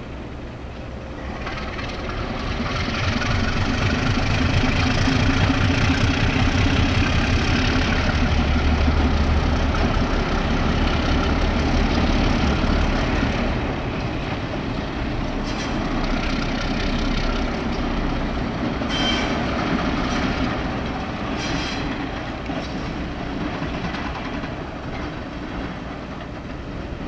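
CN MLW diesel switcher and its booster slug rolling past with a covered hopper. The diesel engine drones under load, swelling as the units come close and easing off as they move away. A few short, high squeals come later.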